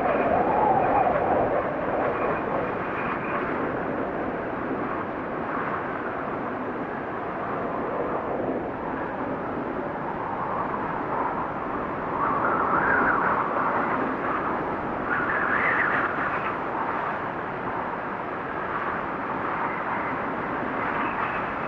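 Blizzard wind blowing steadily, swelling in gusts near the start and twice in the second half, the later gusts whistling higher.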